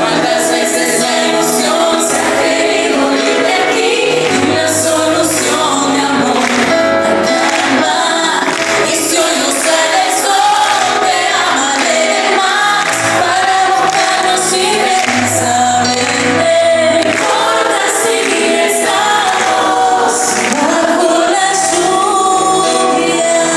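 Pop music: several women singing together over a band, with a bass line under the melody.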